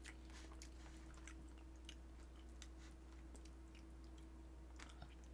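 Faint chewing with scattered small clicks of chopsticks, as grilled fish is picked apart and eaten, over a low steady hum.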